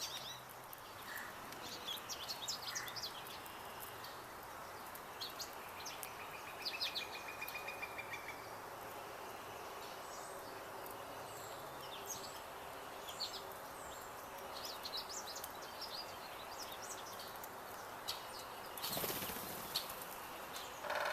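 Small songbirds chirping and calling over a steady background hiss, with a rapid, even trill about a third of the way through. Near the end comes a brief, loud rush of noise.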